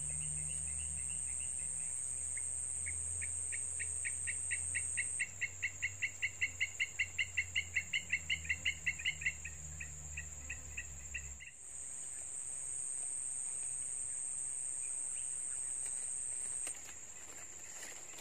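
Steady high-pitched insect drone, with a rhythmic chirping call at about five a second that swells and then fades over the first two-thirds. A low rumble under it stops abruptly about two-thirds in.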